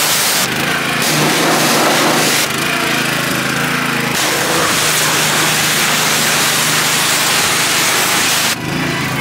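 Pressure washer spraying water with a loud, steady hiss over the machine's steady hum. The spray cuts off suddenly near the end, leaving the pressure washer running.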